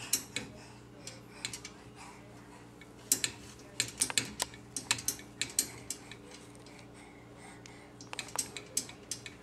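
Metal baby gate rattling and clinking as a baby grips and shakes its bars: irregular sharp clicks in quick clusters.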